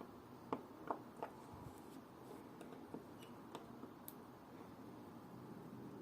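Small, sharp clicks of watchmaking hand tools against the parts of a watch movement: three clearer clicks in the first second and a half, then a few fainter ticks.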